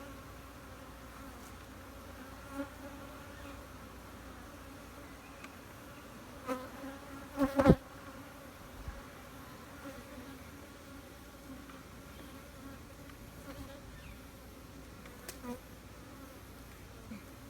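Honeybees buzzing steadily around an opened hive, a constant hum. A few sharp knocks break it, the loudest about halfway through.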